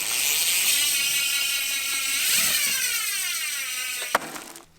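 Rear hub of a DT Swiss XM 1700 mountain-bike wheel fitted with a 54-tooth star ratchet, buzzing loudly as the wheel freewheels, a fast high-pitched whir that wavers in pitch and fades near the end. A sharp click comes about four seconds in.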